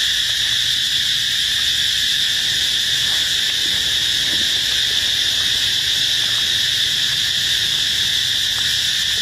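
Insects droning in a steady, unbroken, high-pitched chorus.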